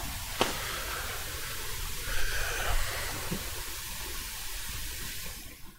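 Steady hiss with a low rumble underneath and a single click about half a second in; the hiss fades out near the end.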